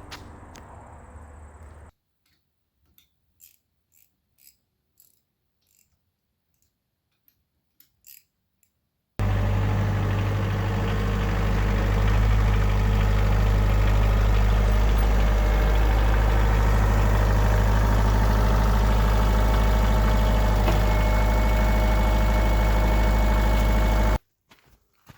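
Engine running steadily at a constant speed, loud and even. It starts abruptly about nine seconds in and cuts off suddenly near the end. Before it, a few seconds of near silence with faint clicks.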